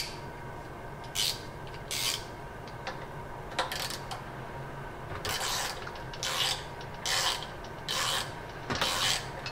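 Hand ratchet wrench clicking in about eight short runs, the later ones longer, as it runs down the bolts that hold a pressure washer's pump head on after new O-rings are fitted.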